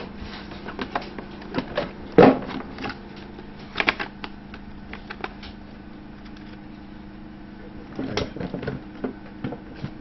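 Clicks and knocks of a laptop hard disk drive in its metal bracket being handled and slotted into the drive bay of an HP 625's plastic base, loudest about two seconds in and again around eight seconds in, over a steady low hum.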